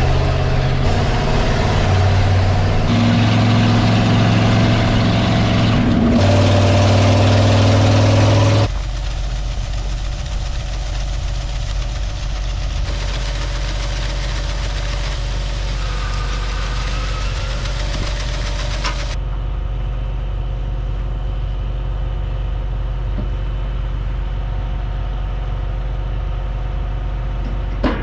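A farm vehicle's engine running steadily, heard in several clips cut together. The sound changes abruptly a few times, and most sharply about a third of the way in, where it drops to a quieter, lower hum. A short click comes near the end.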